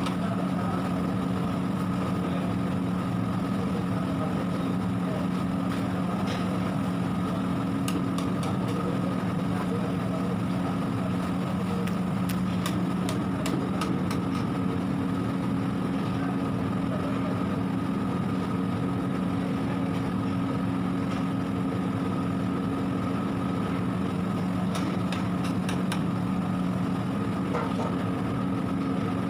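A steady mechanical hum, holding the same few pitches throughout, with scattered faint ticks and crackles.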